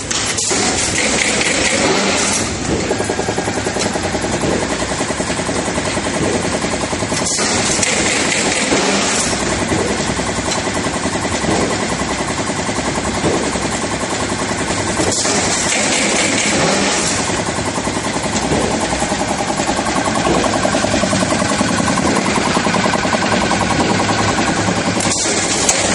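Corrugated-carton stitching machine running, its stitching head driving wire staples in a fast, rhythmic clatter. A brighter hissing spell comes in roughly every seven to eight seconds.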